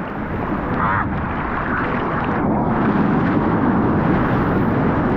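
Choppy surf and whitewater rushing and splashing close to the water's surface as a surfer paddles through broken waves, a steady dense rush with a low rumble.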